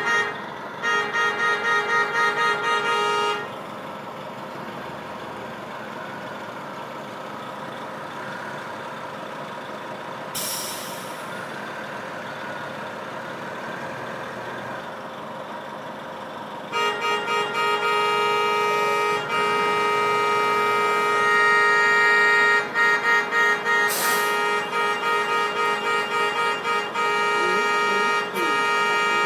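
A bus horn honking in rapid, repeated toots of the same chord. The honking stops after a few seconds, leaving a quieter run of vehicle noise with a short hiss of air, then resumes in long strings of toots with another brief hiss partway through.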